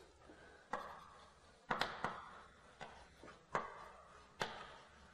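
Chalk writing on a blackboard: about six sharp taps spread over the few seconds, each followed by a short scratch of the chalk.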